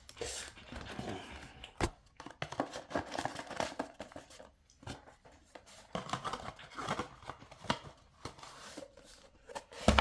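Packaging being handled during an unboxing: irregular rustling and crinkling with scattered small clicks and knocks, the sharpest about two seconds in and just before the end.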